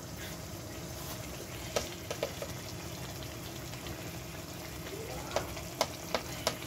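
Chicken masala frying in oil in a pan: a steady sizzling hiss with a few sharp pops and clicks, several of them in the second half.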